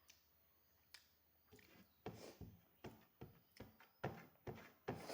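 Close-up eating sounds: a single click, then a run of short, irregular wet smacks of chewing, two or three a second.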